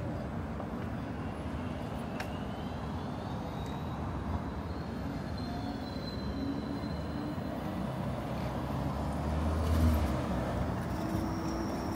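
City street traffic: a steady hum of passing vehicles, with one vehicle going by close and swelling louder about ten seconds in.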